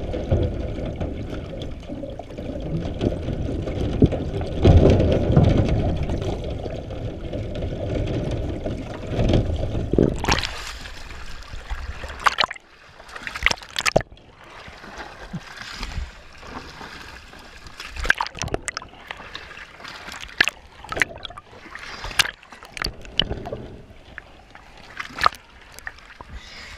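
Muffled underwater rumble of moving water heard through a submerged camera housing. About ten seconds in the camera rises to the surface, and from then on water laps and splashes against the cage bars in short, sharp splashes and drips.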